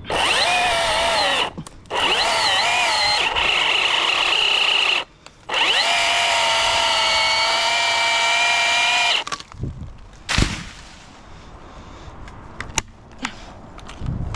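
Battery-powered chainsaw's electric motor running in three bursts, each starting with a rising whine as it spins up; the pitch dips and wavers while it runs. Scattered knocks and rustles follow once it stops.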